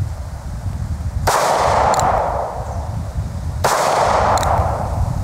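Two shots from a North American Arms Pug .22 Magnum mini-revolver firing standard .22 Magnum rounds, about two and a half seconds apart, each ringing out for about a second. A faint click follows each shot.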